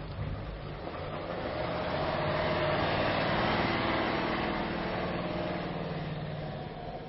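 Range Rover TDV8's diesel V8 running as the SUV crawls past close by off-road, growing louder to a peak about halfway through and then fading.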